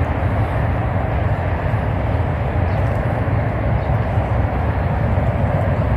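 Wind buffeting the microphone: a steady, fluttering rumble with a broad hiss over it.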